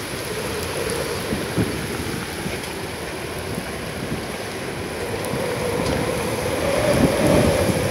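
Heavy rain pouring down onto a wooden deck and open water, a dense, steady hiss.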